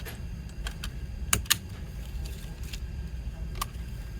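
Scattered sharp clicks and taps of packaging being handled, the loudest two close together about a second and a half in, over a low steady rumble.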